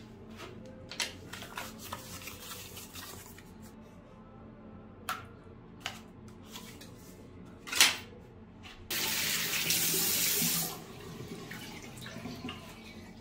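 A few light handling clicks and a sharp clack as a Polident denture-cleaning tablet goes into a small plastic tub. Then a tap runs for about two seconds and cuts off suddenly.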